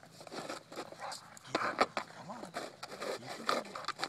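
English bulldog breathing noisily as it noses and mouths a plastic frisbee lying flat on concrete. The frisbee scrapes and clacks against the concrete in a run of short, sharp sounds.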